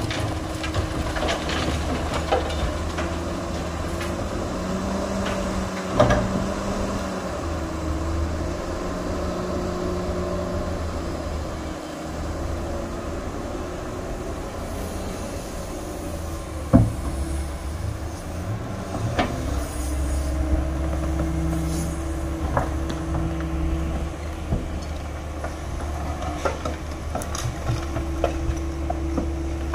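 Doosan hydraulic excavator's diesel engine running under hydraulic load, its pitch rising and falling as the arm and bucket work. Two sharp metallic knocks stand out, about six seconds in and again near seventeen seconds, with lighter clatter from the bucket.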